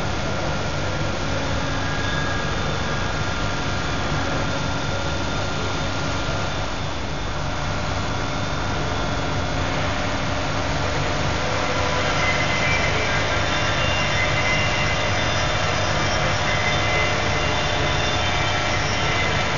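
Electronic bridge saw cutting a stone countertop: a steady machine hum with several high whining tones. About halfway through the tones shift higher and the sound gets slightly louder.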